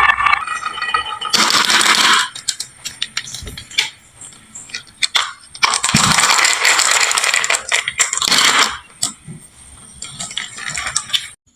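Marbles rolling and clattering down a HABA wooden slope marble run: rapid clicking and rattling in two long dense stretches, with sparser clicks between, stopping shortly before the end.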